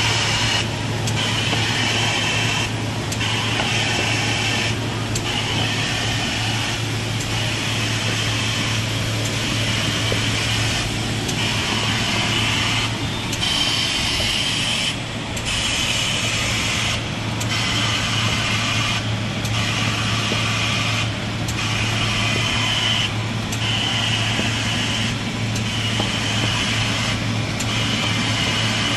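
Automatic laminating machine for corrugated board running on a trial run: a steady mechanical hum under a hissing, clattering noise that dips briefly about every two seconds as the machine cycles.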